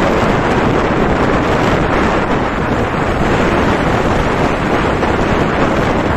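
Wind buffeting the microphone of a camera on a moving motorcycle: a loud, steady rush with no letup.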